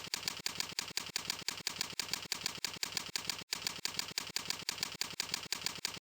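Keyboard keystrokes typing at a very even pace of about five keys a second, with one brief break about halfway, stopping shortly before the end.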